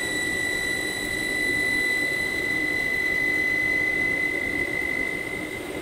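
SKT28L CNC lathe running with its door open while machining a pre-hardened 4140 steel head-stud blank: a steady high whine over a hiss of coolant spray and machine hum.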